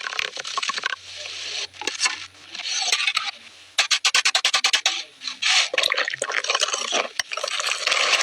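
Kitchen food-preparation sounds: splashing water and clattering, with a quick run of about ten clicks a second midway.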